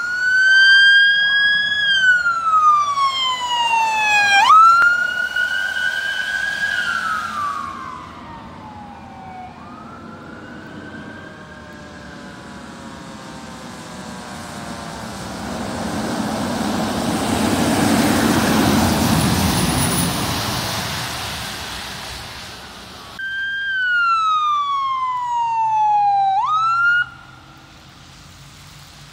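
Fire apparatus electronic siren in wail mode: a tone with overtones sliding slowly up, falling for a couple of seconds, then snapping back up, over and over. It fades partway through, returns, and cuts off suddenly near the end. In the middle, a rushing hiss swells and fades, like tyres passing on a wet road.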